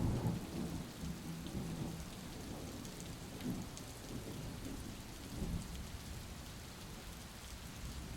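Steady hiss of falling rain, with irregular low rumbles underneath.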